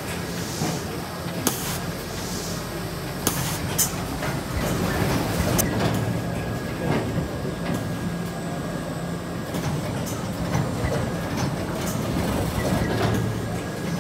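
Dorayaki pancake production line running: a steady hum of conveyor belts and drive motors, with a few sharp clicks in the first few seconds.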